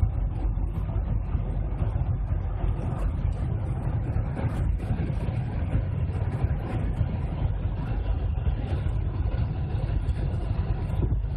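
Steady road and engine noise inside a car's cabin at motorway speed, a low, even rumble that does not change.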